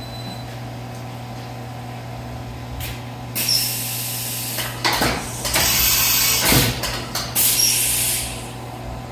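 FADAL VMC4020 CNC vertical machining center with a steady low hum. About three seconds in, loud hissing starts and runs for about five seconds in several bursts with short breaks, then drops back to the hum.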